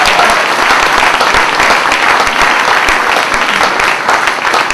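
A large audience applauding, steady dense clapping.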